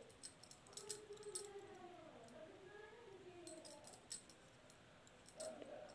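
Faint, scattered clicks and taps of metal knitting needles as a stitch is picked up and worked. Under them, a faint drawn-out wavering sound in the background.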